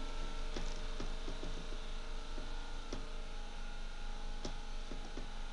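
Steady hum and hiss of room and microphone noise, with a scattered handful of faint clicks and knocks.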